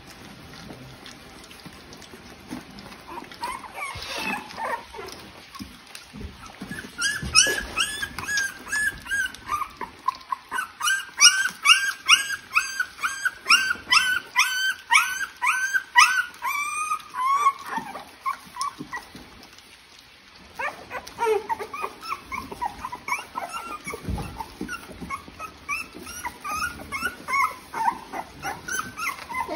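Three-week-old American Bully puppies whimpering and crying: a quick run of short, high cries, about two a second, from about seven to seventeen seconds in, then more scattered whines after a short lull.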